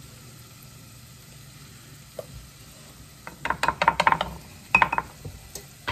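Kitchen handling sounds: a quick run of sharp knocks and taps from a wooden spatula and wooden cutting boards, starting about three and a half seconds in. Before it there is only a faint steady background.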